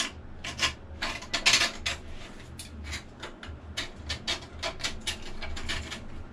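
Metal rule scraping thick, oily crud out from around the rear crank seal housing of a diesel engine, in a run of quick, uneven scraping strokes.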